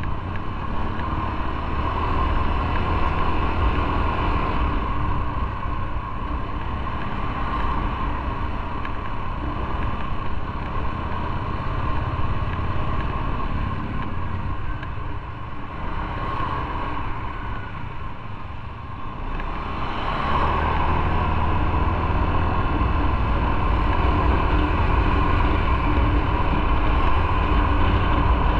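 Motorcycle engine running while riding. It eases off partway through and pulls louder again about twenty seconds in.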